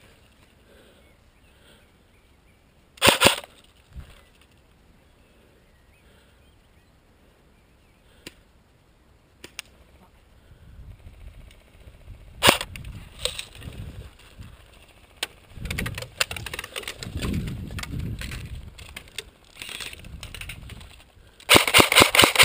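CYMA CM.028 AK-47 electric airsoft gun firing short full-auto bursts of rapid clatter, once about three seconds in and again near the end. In between there is low, uneven rustling as the player moves to new cover.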